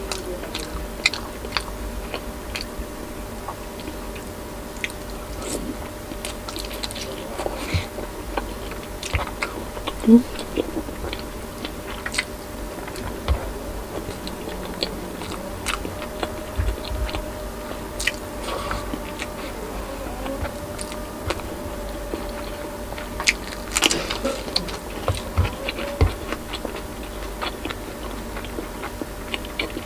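Close-miked chewing and biting of soft boiled pork belly and rice: irregular short clicks and smacks from the mouth, the loudest about ten seconds in.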